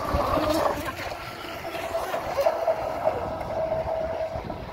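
Radio-controlled model speedboats running on a pond: a steady high motor whine over the hiss of water spray, louder in the first second as a boat passes close.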